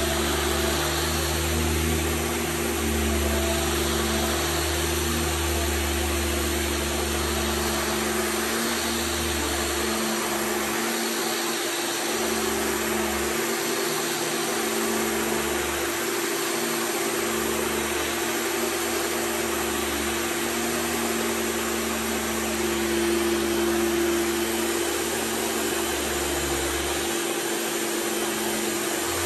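Vintage Hoover canister vacuum cleaner running steadily, a constant motor hum with a hiss of suction, while its floor tool is pushed back and forth over carpet.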